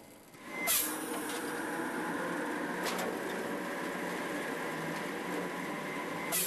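Log debarking machine running, with a sharp knock as it comes in about half a second in, another about three seconds in and one near the end.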